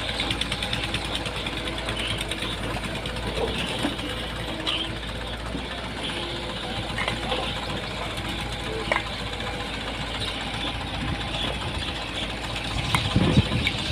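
Engine of an earth-moving machine running steadily with a fast, even chugging, with faint voices of workers and a few light clicks now and then.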